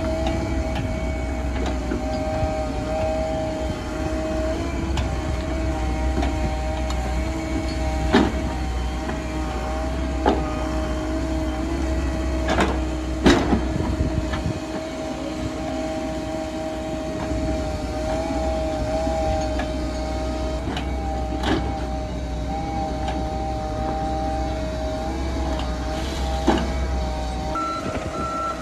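Komatsu PC138US excavator working: its diesel engine and hydraulics run with a steady whine while the bucket digs, with about six sharp clanks of the bucket and stones, the loudest about 13 seconds in. Near the end an evenly pulsed warning beeper starts.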